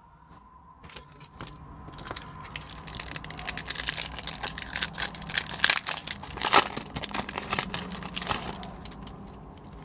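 Wrapper of an Upper Deck hockey card pack being torn open and crinkled: a dense run of crackles, loudest about six and a half seconds in.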